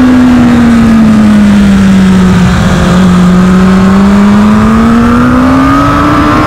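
2021 Kawasaki ZX-10R's inline-four engine heard from on the bike in second gear. Its revs fall steadily under braking to a low point about halfway through, then climb again as the throttle is opened, over steady wind noise.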